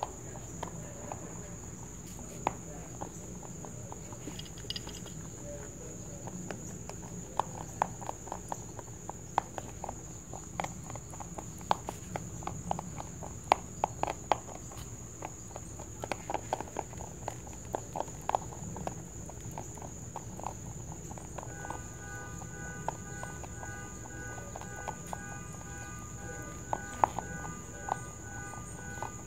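Rabbit chewing dry pellet food: a run of crisp crunching clicks, several a second, from about a quarter of the way in to near the end. A steady high whine runs underneath, and a set of steady tones joins about three-quarters of the way through.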